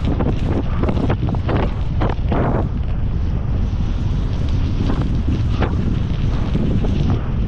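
Heavy wind buffeting the microphone of a rider at speed, with a constant low rumble. Scattered short knocks and rattles come in the first few seconds and again about five seconds in.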